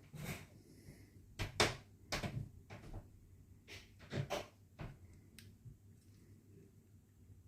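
A Mercedes key fob being handled and opened by hand: a run of irregular small clicks and knocks of hard plastic, about eight over the first five seconds, then only faint handling noise.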